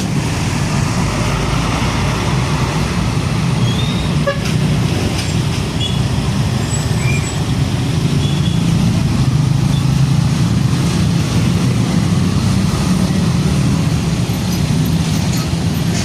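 Heavy diesel trucks running in busy road traffic: a steady, loud, low-pitched engine sound, with a few short high chirps around the middle.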